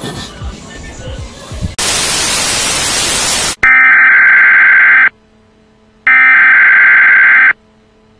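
A burst of TV static hiss lasting about two seconds, then an emergency broadcast alert tone sounding in two loud, steady blasts of about a second and a half each, with a silent gap between.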